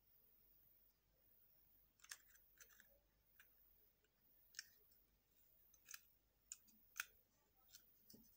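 Faint, irregular plastic clicks and taps from an LED bulb's housing and metal screw-base cap being handled and fitted together, about a dozen in all starting about two seconds in.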